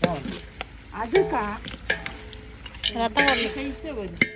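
Metal ladle stirring and scraping through a large pan of mutton fry, with sharp metallic clinks near the end; voices talking in the background.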